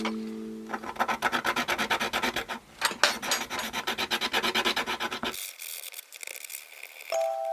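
A small 3D-printed plastic part being rubbed down by hand with an abrasive in rapid back-and-forth strokes, several a second. After about five seconds the strokes turn softer and thinner.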